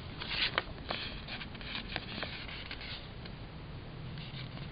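Soft rustling and a few light taps and clicks of paper sticker sheets being handled, mostly in the first two seconds.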